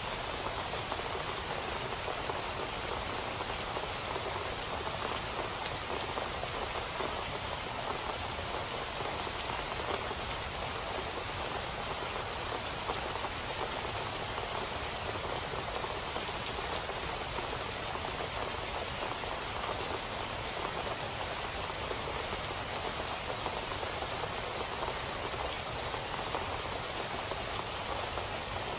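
Steady rain falling on a wet paved street, an even hiss of drops with no single sound standing out.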